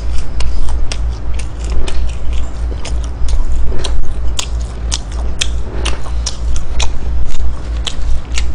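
Close-miked chewing of McDonald's chicken nuggets: a run of quick wet mouth clicks, several a second, over a steady low hum.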